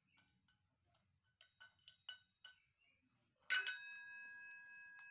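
Light metallic taps and clinks, then one sharper clink that rings on for about two seconds.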